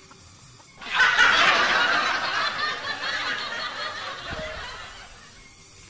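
Canned laughter: a burst of snickering laughter that starts suddenly about a second in, is loudest at first, and fades away over the next four seconds.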